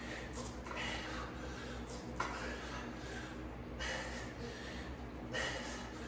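A man breathing hard with each chest fly rep, one heavy breath about every second and a half, over a steady low hum.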